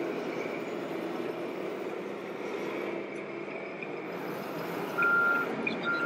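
Reverse-warning beeper of a radio-controlled model truck's sound module, giving two steady beeps of about half a second each near the end, over a steady hum of model truck engine sounds.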